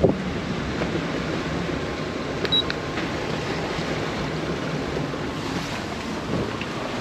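Waves rushing and breaking around a sailing yacht's hull in a rough sea, with fresh wind: a steady wash of water and wind noise.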